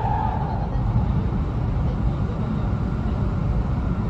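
Cabin running noise of a Joetsu Shinkansen E2-series car at speed, heard from inside: a steady low rumble of the wheels on the rails. A faint steady tone comes in about a second and a half in.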